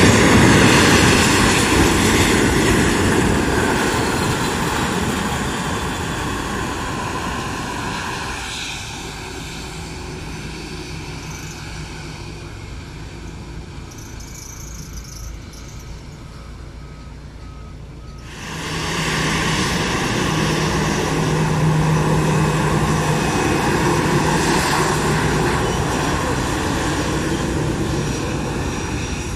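Jet engines of an Avianca Airbus A320-family airliner moving along the runway, a loud steady rush that fades as the aircraft moves away. About two-thirds of the way in it is abruptly loud again, with a steady low hum under the engine noise.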